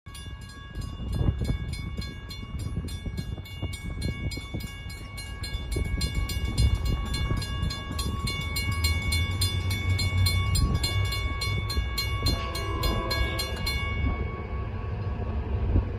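Railroad grade-crossing warning bell ringing in rapid, evenly spaced strikes while the crossing gates come down, stopping about 14 seconds in once the gates are down. A train horn begins to sound near the end, over a low rumble.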